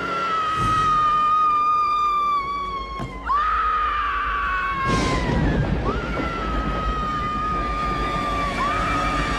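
A woman screaming in long, high, sustained screams, four in a row, each sagging slightly in pitch before she draws breath, over dramatic film music.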